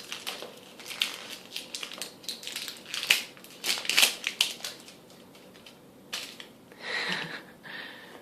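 Wrapper of a surprise egg crinkling and tearing as it is pulled off by hand, in a run of sharp crackles that thins out after about five seconds.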